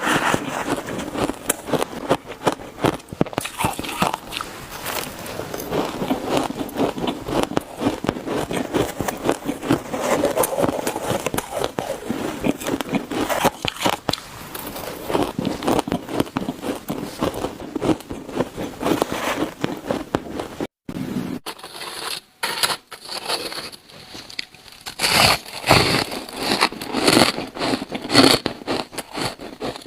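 Close-miked biting and chewing of buckwheat ice, with dense crunching and crackling. There is a brief break about 21 seconds in, after which the crunches are sharper and more spaced out.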